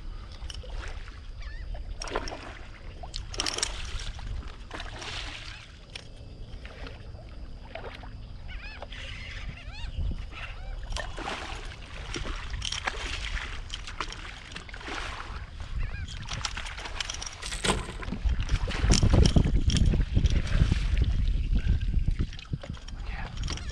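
Water splashing and sloshing around a kayak in short irregular bursts, with a heavier low rumble coming in over the last few seconds.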